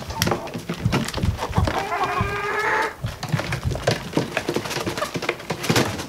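Hens pecking at a feeder: quick, irregular taps throughout. About two seconds in, one hen gives a drawn-out call lasting nearly a second.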